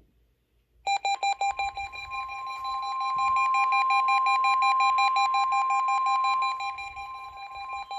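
NOAA Weather Radio 1050 Hz warning alarm tone from a weekly test broadcast, a loud steady high tone starting about a second in. Weather alert receivers set off by the test beep rapidly along with it.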